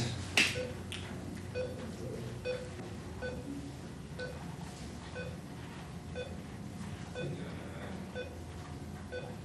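Operating-room heart monitor beeping steadily with the patient's pulse, a short pitched beep a little more than once a second. There is a brief sharp clatter about half a second in.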